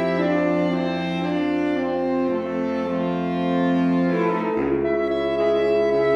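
Saxophone sextet playing slow, sustained chords over a low bass saxophone line, moving to a new chord about two-thirds of the way through.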